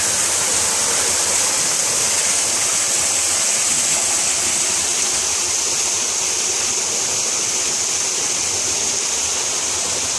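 Shallow creek water running over rocks: a steady, unbroken rushing of flowing water.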